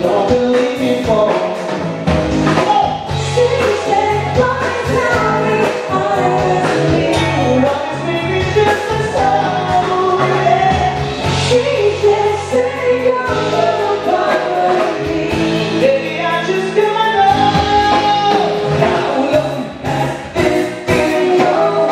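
Live band playing with a singer's voice out front: sung melody over drums, electric guitars and a bass line. The low bass notes drop out for a couple of seconds about two-thirds of the way through, then return.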